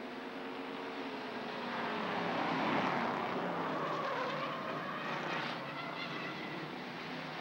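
A pack of hobby stock race cars running at speed past the camera, their engines growing louder to a peak about three seconds in, then easing as the cars go by.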